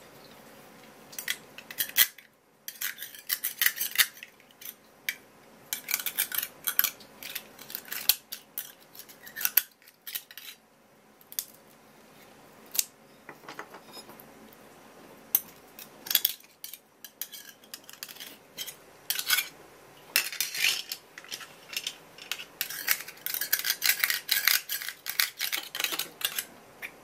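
A small metal knife clicking and scraping against noble scallop shells as they are pried open and the meat is cut free: many short clicks and scrapes in uneven clusters, busiest near the end.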